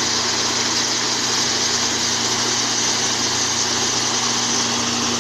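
Motorised groundnut (peanut) shelling machine running steadily while peanuts are fed into its hopper: a steady hum under a hiss.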